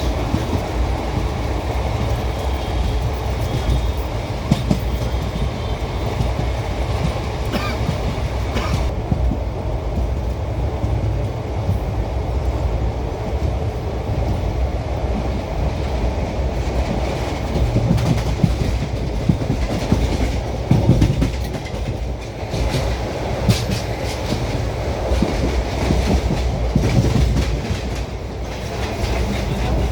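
ICF passenger coach running on the rails: a steady low rumble of the wheels with scattered clicks and clacks.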